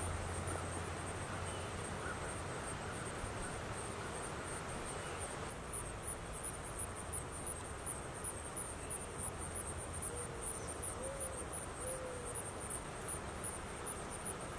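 Quiet pond-side ambience: an insect's high chirp repeating steadily a couple of times a second over a faint hiss, with three faint short low hooting calls from an unseen animal near the end.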